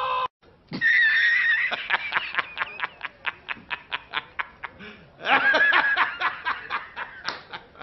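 A man laughing: a high held squeal, then a run of quick 'ha's that slows down and fades, then a second loud burst of laughter a few seconds later.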